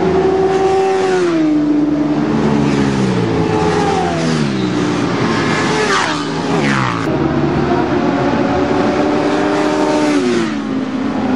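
Several sport motorcycles at high revs going past on a race track, their engine notes falling in pitch one after another as each passes. One bike goes by closest about six seconds in.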